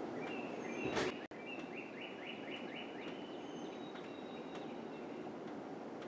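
Faint outdoor ambience: a steady low hiss with small birds chirping, including a quick run of about six chirps around two seconds in. About a second in there is a brief loud knock, followed at once by a momentary drop-out.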